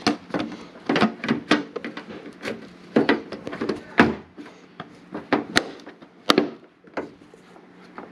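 Irregular knocks and taps, more than a dozen sharp ones spread over several seconds, as a hand handles and presses on a carbon fiber fender fitted to the car.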